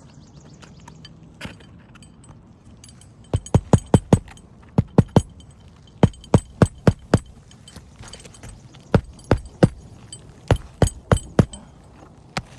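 Hammer driving roofing nails into a replacement asphalt shingle: sharp metallic strikes in quick clusters of three to six, with short pauses between clusters.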